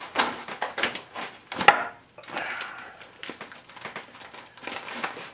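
Bayonet blade sawing through the thick plastic of an MRE pouch: a run of irregular scratchy slicing strokes and crinkling of the bag, loudest about one and a half seconds in.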